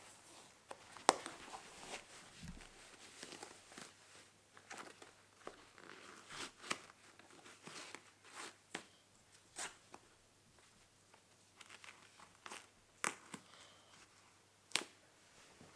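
Shoelaces being laced and pulled tight through shoe eyelets: faint scattered rustling with a few sharp little ticks.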